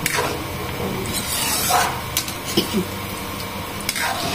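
Metal spatula stirring and scraping sugar-coated banana chunks around a metal wok, over a steady frying sizzle as the brown sugar melts. A few scrapes and a couple of light clicks of the spatula on the pan.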